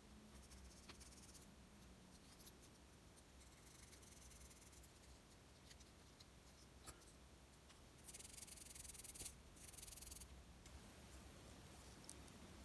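Mostly near silence, broken by two short bursts of faint rubbing, about eight and ten seconds in, as the small metal multi-tool is wiped during cleaning, and a faint click shortly before them.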